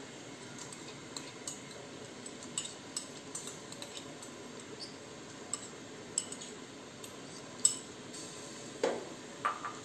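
Raw rice grains poured from a bowl into a pressure cooker: scattered light clicks and ticks, with a sharper click a little before the end and two louder knocks just after it.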